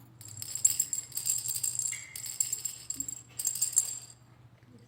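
A Montessori sound cylinder being shaken, its filling rattling in three bouts of about a second each; the shaking stops about four seconds in.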